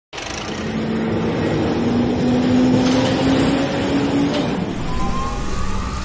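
Excavator working: a loud, noisy machine rumble with a whine that slowly rises in pitch, then a second, higher whine that also rises begins about five seconds in.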